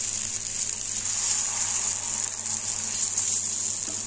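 Semolina dosa batter sizzling steadily on a hot oiled tawa as it cooks.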